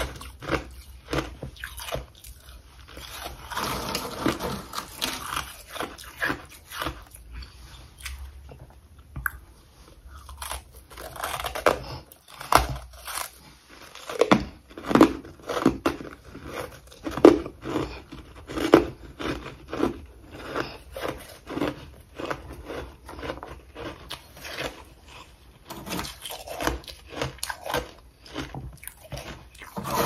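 Freezer frost being bitten and chewed: a run of crisp, irregular crunches, the loudest bites coming in the middle of the stretch.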